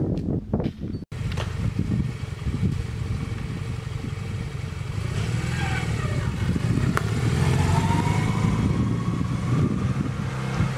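Small motorcycle engine running and pulling away, its pitch rising and shifting as it rides off, loudest near the end. A few knocks come just before it starts, about a second in.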